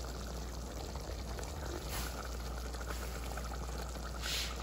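Pot of hot-dog sauce simmering and bubbling on the stove, a steady low hiss, with a short louder hiss near the end.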